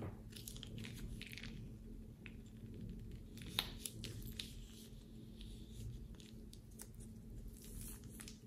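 Plastic piping bag crinkling and crackling in a hand while red slime is squeezed out of it, with small sticky squishes. There is one sharp click about three and a half seconds in.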